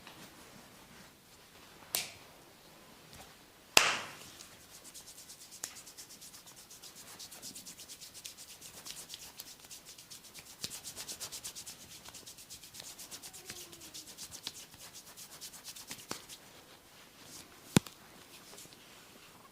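A barber's hands rubbing briskly over skin or hair in a fast, even rhythm during a massage. Sharp snaps come about two seconds in, just before the rubbing starts (the loudest), and again near the end.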